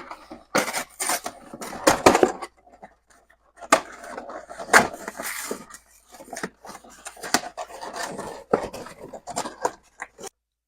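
A cardboard trading-card collection box being opened and its contents unpacked by hand: irregular knocks, scrapes and rustling of cardboard and packaging. It cuts off suddenly near the end.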